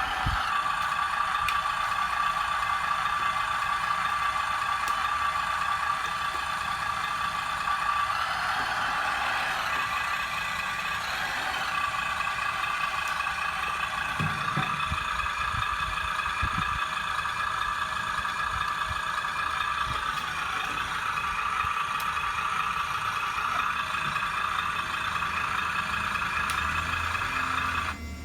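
Radio-controlled 1/12-scale 6×6 MRAP truck model running, a steady high whine that shifts slightly in pitch now and then, with a few low knocks in the middle; it cuts off suddenly at the end.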